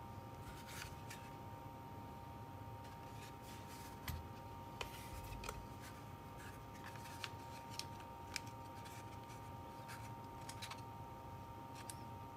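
Faint scattered clicks and taps of airsoft rifle magazines being handled, turned over and set down on a rubber work mat, over a faint steady tone.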